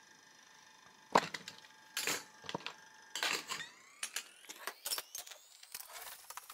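A few knocks and scrapes of handling, then the small DC motor of a homemade thermoelectric stove fan starting to whine. Its pitch rises steadily through the second half as the fan speeds up on the heat.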